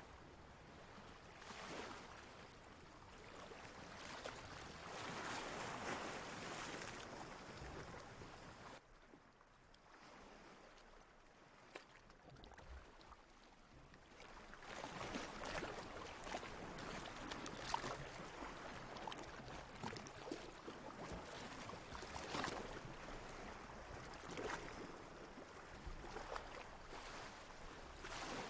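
Sea water washing and splashing in slow swells, with small splashes and trickles throughout. It dies down about nine seconds in, then builds again about six seconds later.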